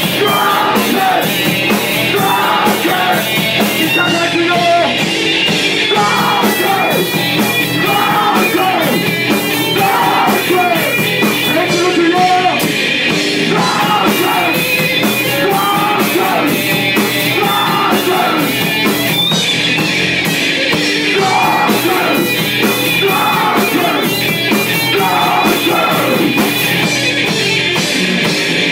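Hardcore metal band playing live, loud and dense, with yelled vocals over the music.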